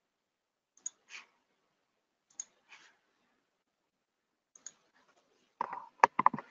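Faint clicks at a computer, coming in pairs a fraction of a second apart three times, then a louder run of clicks and knocks near the end.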